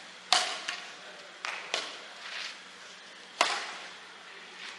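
Badminton rackets hitting a shuttlecock back and forth in a rally: several sharp, string-twanging hits, one every second or two, with fainter taps in between.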